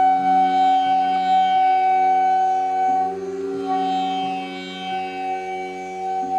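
Instrumental Indian devotional music: a long held melody note over a steady drone.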